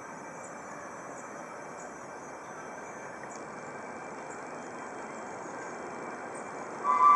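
Steady rushing noise, then near the end a miniature railway locomotive's whistle suddenly sounds loud, a two-note chord held steady.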